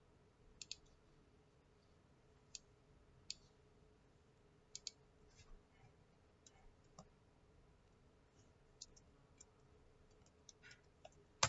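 Computer mouse clicking: faint, irregular single and double clicks, with a louder click near the end.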